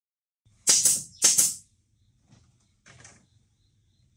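Paint spray gun hissing in short bursts as it sprays paint onto bamboo: two loud bursts about a second in, then two fainter ones, over a faint low hum.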